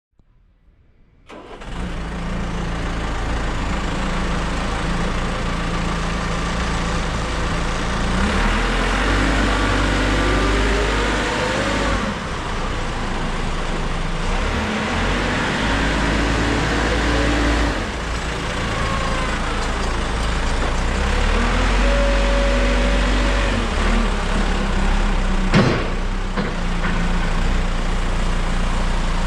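JCB 4CX backhoe loader's diesel engine running, coming in abruptly about a second in. It revs up three times, holding the higher speed for several seconds each time before dropping back to idle. A single sharp knock sounds near the end.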